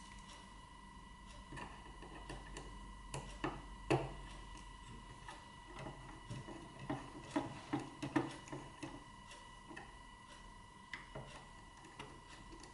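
Small screwdriver and screw clicking and scraping against the metal and plastic parts of a slide projector's slide-direction mechanism while the screw is being fitted: a run of light, irregular clicks and taps, busiest in the middle.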